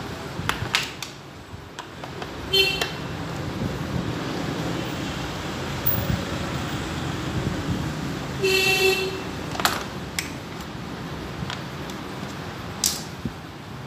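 Steady street traffic noise with a vehicle horn beeping twice, briefly about two and a half seconds in and longer around eight and a half seconds in. A few sharp clicks of a screwdriver working the bolts of a scooter's plastic air filter box.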